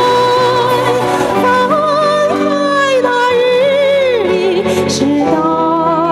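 A woman singing into a microphone over instrumental accompaniment, holding long notes with vibrato.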